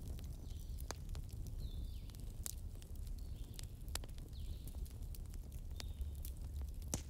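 Log fire burning: a steady low rumble with a few sharp crackles and pops, one every second or two.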